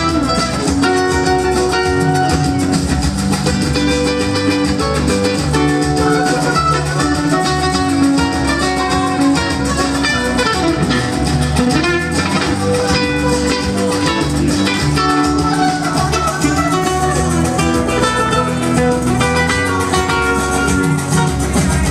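Two amplified acoustic guitars playing a Mediterranean-style instrumental live, with quick plucked melody lines over strummed chords.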